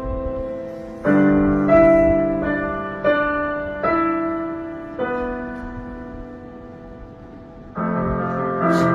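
Piano chords struck one after another at an uneven, slow pace, each ringing and fading away, with a long fade in the middle before a new cluster of notes near the end.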